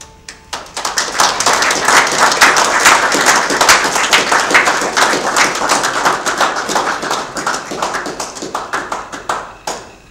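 A small crowd clapping. It starts about half a second in, swells quickly, then thins out to a few last separate claps near the end.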